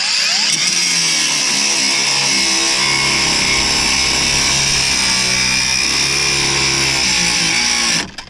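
Cordless angle grinder spinning up and grinding into a rusted steel track rod end nut. It runs steadily under load, then cuts out suddenly near the end, as this grinder keeps doing.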